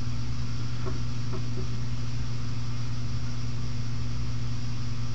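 Wood lathe running steadily with a low hum, no tool cutting; a few faint ticks about a second in.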